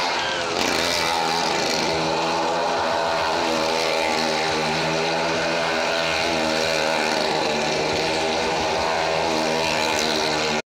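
Engine of a stunt vehicle circling the wall of a wooden well-of-death arena, held at steady high revs in a continuous drone. It cuts out for a moment near the end.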